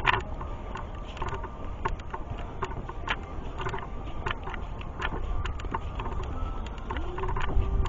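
Footsteps crunching and clicking on a rocky, leaf-covered hiking trail, with irregular sharp clicks and a steady low rumble of wind or handling on the microphone.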